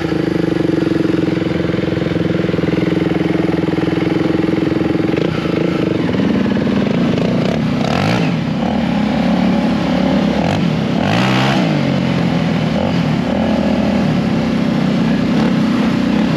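Polaris Sportsman XP 1000 ATV's twin-cylinder engine under way, holding a steady note for the first few seconds. About six seconds in the note drops, then revs up and down several times as the throttle is worked on the trail.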